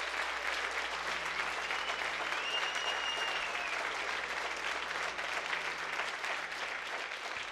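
Concert audience applauding steadily, with a few whistles in the first half.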